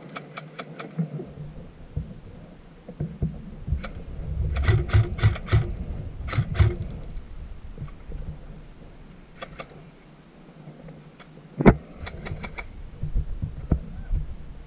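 Airsoft guns firing in several short bursts of rapid, evenly spaced snaps, with one louder single crack toward the end, over a low rumble of wind and handling noise.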